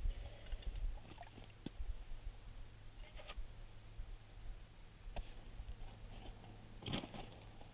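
Faint scrapes and a few short clicks and knocks as an ice-fishing tip-up and its line are handled at the hole, the sharpest knock near the end, over a low steady rumble.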